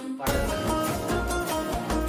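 Background music: the sung passage of a film song cuts off a moment in and a fuller instrumental track with a heavy bass beat takes over.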